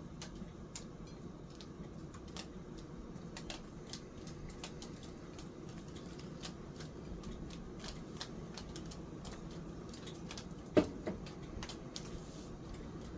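Scattered light clicks and taps from hands working on a partly disassembled ceiling fan, with one sharper knock about eleven seconds in.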